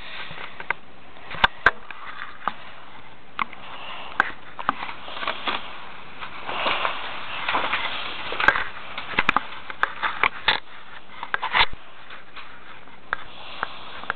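Short breathy sniffs, several in a cluster around the middle, with scattered small clicks and taps.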